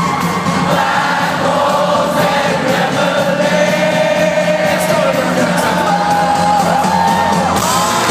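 Live rock band playing at concert volume, heard through a phone's microphone in the crowd: a sung melody over a steady drum beat, with the audience singing along.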